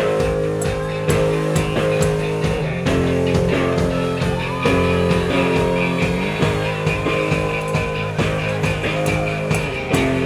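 A live garage-rock band plays electric guitars over a steady drum beat with cymbal hits.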